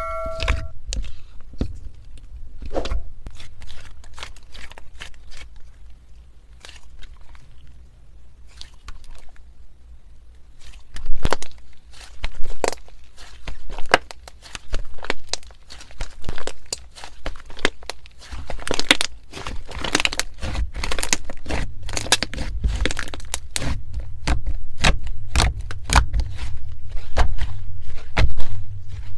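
Slime being squeezed and worked by hand: an irregular run of crackling, crunching clicks and pops. It gets busier and louder from about eighteen seconds in.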